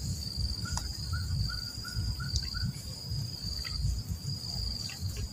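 Insects trilling steadily in a high, pulsing chorus over a low rumble, with a run of about seven short chirps about a second in.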